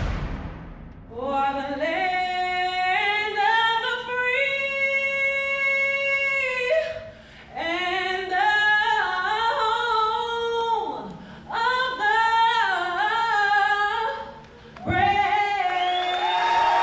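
A woman's voice singing solo and unaccompanied, in phrases of long held and sliding notes. Crowd cheering breaks in near the end.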